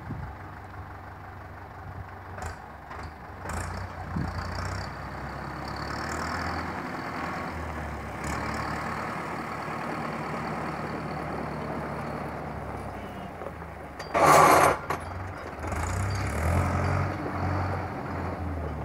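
Fendt 306 tractor's diesel engine running while its brakes make a bad-sounding noise, with one loud harsh burst lasting about half a second some fourteen seconds in. The brakes are also not holding well although the pads look good.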